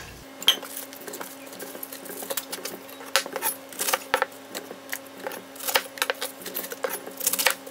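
Chef's knife slicing through a raw cabbage wedge and tapping on a plastic cutting board: a string of crisp, irregular crunches and knocks. A faint steady hum sits underneath.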